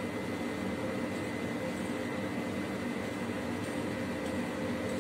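Steady background hum and hiss with a constant faint whine, from a running appliance such as a fan. Faint, brief squeaks of a marker writing on a whiteboard.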